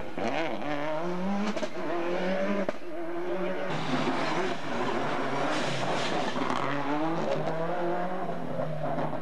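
Subaru Impreza WRC rally cars' turbocharged flat-four engines at full throttle on a tarmac stage, climbing in pitch and dropping back at each gear change. Several short passes are cut together, with abrupt breaks about three and four seconds in.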